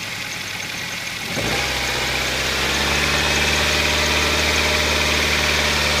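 Nissan QG15DE 1.5-litre four-cylinder twin-cam 16-valve engine idling on its first run after a timing chain replacement, with what the owner thinks is a misfire on one cylinder. About a second and a half in it gets louder and settles into a steady low hum.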